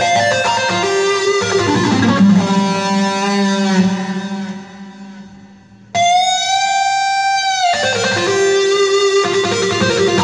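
A Roland Lucina AX-09 keytar playing a guitar patch. Runs of notes over a low held note fade out about four seconds in. A single held note starts abruptly about six seconds in and lasts nearly two seconds, then the note runs start again.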